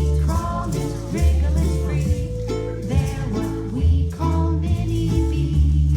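Music: a song with plucked strings over a steady bass line that changes note every second or so.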